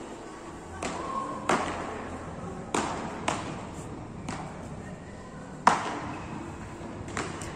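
Beach tennis paddles hitting the ball in a rally: a run of sharp pops, roughly one a second but irregular, echoing in a large hall. The loudest hit comes near the end.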